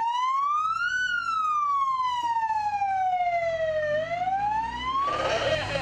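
Emergency siren on a rescue-service van, wailing: the tone climbs for about a second, falls slowly for about three seconds, then climbs again before giving way to a rush of noise about five seconds in.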